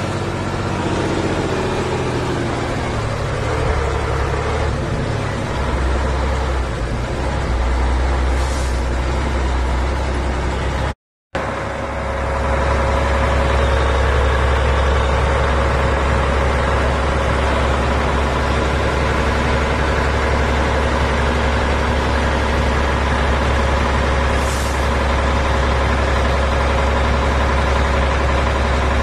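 Praga V3S army truck's air-cooled six-cylinder Tatra diesel heard from inside the cab while driving, a loud, steady low drone. The sound cuts out for a moment about eleven seconds in and comes back louder and steadier.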